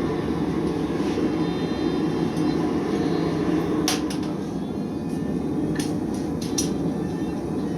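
Steady rushing noise of a running forge, with a few light metallic clicks about halfway through and again a couple of seconds later.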